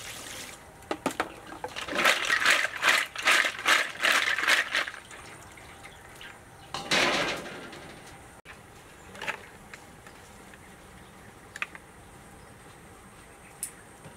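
Water poured from a scoop over a basket of snails, then splashing and sloshing in a run of bursts as the snails are rinsed, with one more pour about seven seconds in.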